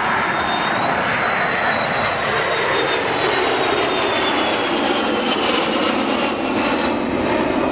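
Kawasaki C-1 twin-engine jet transport flying past, its turbofans giving a loud steady roar. A thin high whine rises slightly about a second in, then slowly falls.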